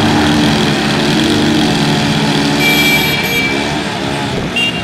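Single-cylinder motorcycle engines running hard under load: a Suzuki GS 150 and two 70cc Unique motorcycles pulling against each other on a rope. The engine sound eases down somewhat in the second half.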